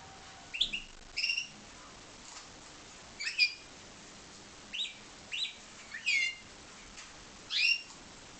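Timbrado canary giving short separate chirps, about seven brief notes with pauses between them.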